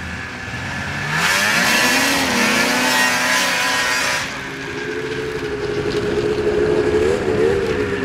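Snowmobile engine revving up as it pulls away, rising in pitch, with a loud rushing hiss for the first few seconds. It then runs at a steady pitch as it moves off, wavering briefly near the end.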